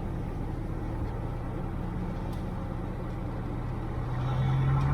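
1962 Cessna 150's Continental O-200 four-cylinder engine and propeller running with a steady low drone, which grows louder and rises slightly in pitch near the end as power comes up.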